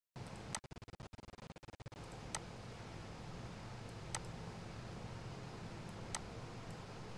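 Faint microphone hiss and room tone with four short, soft clicks about two seconds apart, typical of computer mouse clicks.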